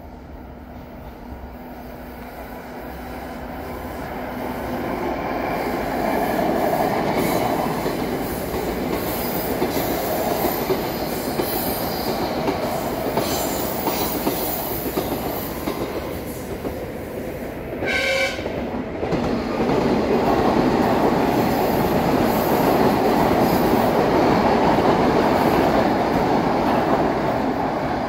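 Moscow Metro trains running on open-air track, a steady rumble with wheel clatter that builds as a train draws near and passes. About two-thirds of the way through comes one short horn blast, and then the rumble swells again as a second train passes.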